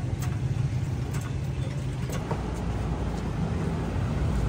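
Steady low hum of an idling vehicle engine, with a few faint clicks.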